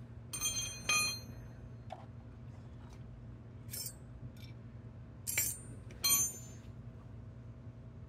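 Metal hand tools and brake parts clinking as they are handled during a front brake pad change: several sharp metallic clinks that ring briefly. The loudest come about a second in and again around five and six seconds in.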